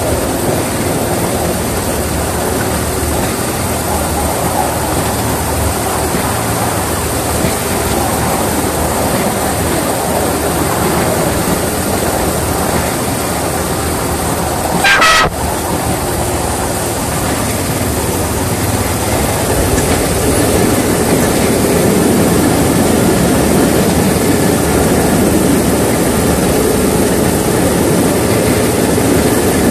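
Miniature-railway class 31 locomotive running steadily along the track, with engine and running noise throughout that grows a little louder in the second half. About halfway through, the horn gives one short toot.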